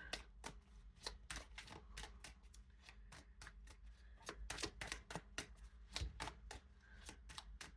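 Tarot cards being shuffled by hand: a faint run of quick, irregular card flicks and snaps, thickest in the middle of the stretch.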